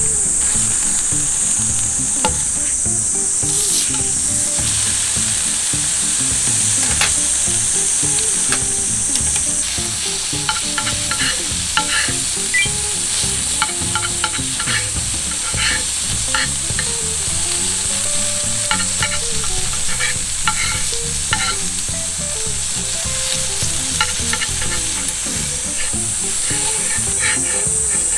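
Steaks searing with a steady sizzle on a thick 6 mm uncoated iron griddle plate. From about ten seconds in, short clicks and taps of a knife and metal spatula on the plate come in as the meat is cut.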